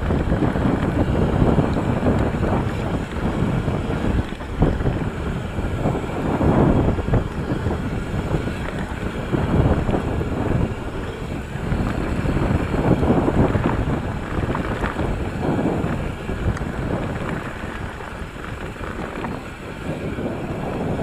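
Wind buffeting an action camera's microphone over the rolling rumble and chatter of a mountain bike's tyres on a dirt singletrack, swelling and easing every few seconds with speed and terrain.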